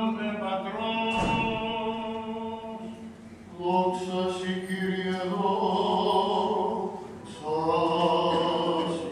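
Greek Orthodox liturgical chant sung by male voices in long held phrases, with a low note held steady beneath the moving melody in the first phrase. A single knock sounds about a second in.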